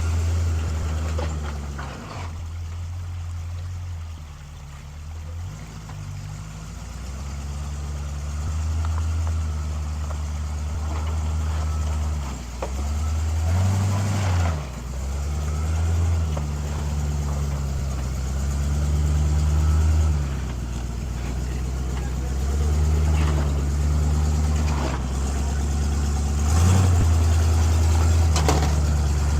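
1973 Chevrolet K20 pickup's engine pulling at low revs over rocks, revving up and easing off several times, with a few knocks from the rocks underneath.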